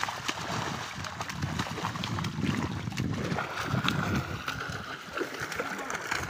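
Water sloshing and splashing as a fishing net is hauled through shallow water by people wading, with fish thrashing at the surface inside the net. Many short, irregular splashes over a steady wash of moving water.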